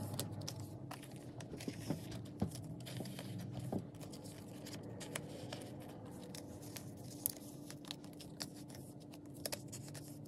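Photocards slid in and out of clear plastic binder sleeve pockets: soft, irregular crinkling and scraping of the plastic, with small clicks as cards catch on the pocket edges.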